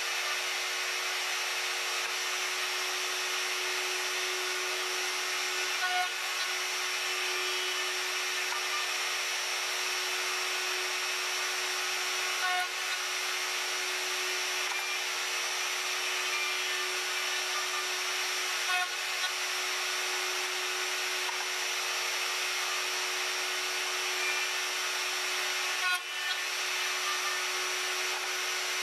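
Router mounted under a router table, running steadily at high speed with a constant whine while box joints are cut on a box-joint jig. Brief clicks and bumps come about every six to seven seconds as the board is worked along the jig from slot to slot.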